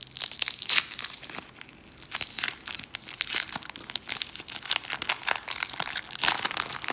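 A trading card pack wrapper being torn open and crinkled by hand, with dense crackling throughout.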